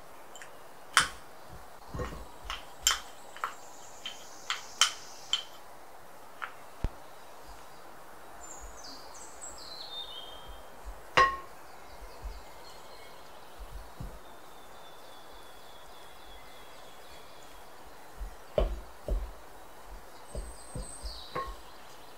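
A wooden spoon knocking and clinking against a glass mixing bowl while stirring dry almond flour: a run of sharp taps in the first few seconds, one loud knock about halfway, and another cluster near the end, over a steady low hiss.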